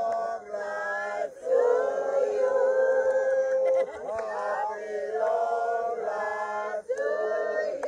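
A small group singing together in unison, phrases of a few seconds each separated by short breaths.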